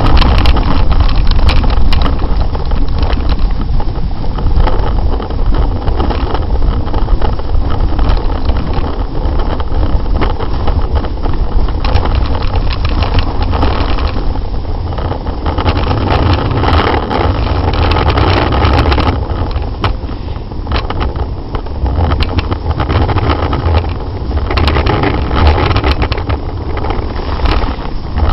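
Continuous wind rush buffeting a leg-mounted camera's microphone, mixed with a snowboard scraping and chattering over hard, chopped snow during a descent. Loud throughout, with a deep rumble and scattered crackles.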